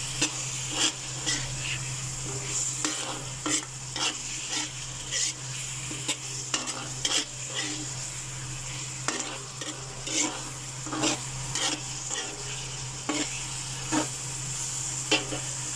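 A metal spoon scraping and clinking against a wok as it stirs pork and shrimp paste, with irregular strokes throughout. Under the strokes is a steady sizzle of the meat frying in its own rendered oil.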